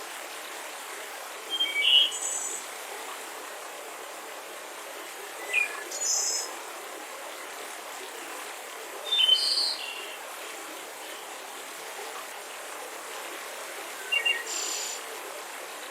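Forest ambience: birds chirping in short phrases of a few quick high notes, four times about four seconds apart, over a steady soft hiss.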